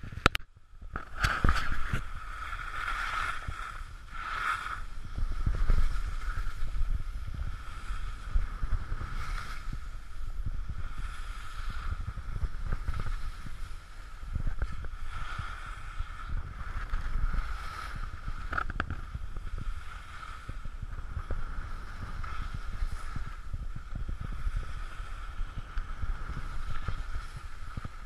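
Skis scraping and hissing over packed snow during a downhill run, with wind rushing on the camera's microphone: a steady rumbling hiss that swells and eases with speed.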